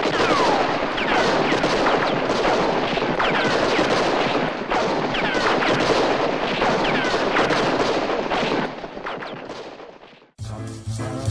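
A film-soundtrack gunfight: a dense, continuous barrage of gunfire with repeated short falling whines, fading out near the end. Brass-band music starts just before the end.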